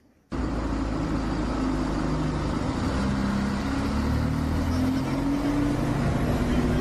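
Outdoor street noise: a steady rumble and hiss with a motor-like drone that slowly wanders in pitch, cutting in abruptly right at the start.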